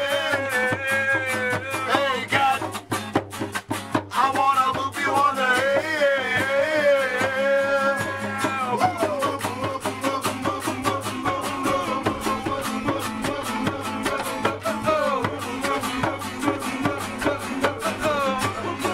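Live acoustic song: a man singing over a strummed acoustic guitar keeping a steady rhythm.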